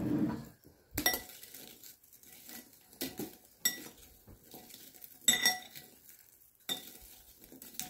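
Metal spoon clinking against a glass bowl while stirring fried wheat pinwheels in hot sauce: about half a dozen separate clinks, each with a short ring.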